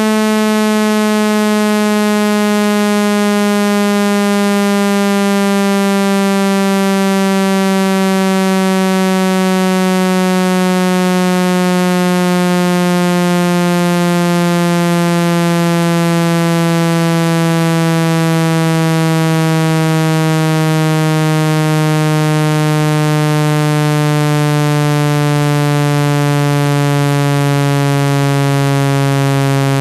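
Synthesized water-eject tone, made to shake water out of an iPhone speaker: a single low, buzzy tone with many overtones, sliding slowly and steadily downward in pitch at constant loudness.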